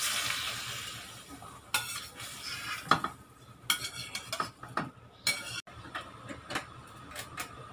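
Stir-fried vegetables being tipped out of a hot metal wok into a bowl. A hiss rises from the pan at the start and fades over about a second, followed by scrapes and knocks of utensil and pan against the bowl, and a few lighter clicks near the end.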